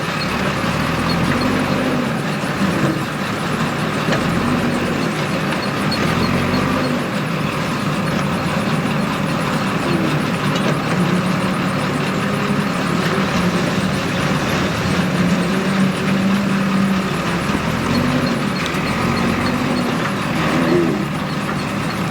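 JCB 3DX backhoe loader's diesel engine running under hydraulic load, its speed rising and falling again and again as the machine works.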